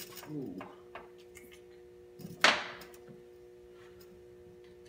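Hand-tool work on a dirt bike's hose clamps: a few light clicks and a short squeak, then one sharp knock about two and a half seconds in, with a steady hum underneath.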